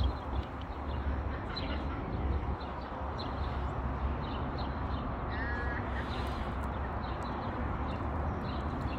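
Open-air city ambience with a steady low rumble and the light tap of footsteps on paving stones. About five and a half seconds in, a bird gives one short call.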